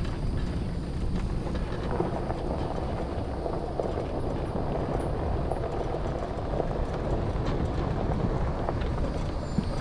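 Steady low rumble of wind buffeting the microphone of a camera riding along a paved road, mixed with rolling road noise.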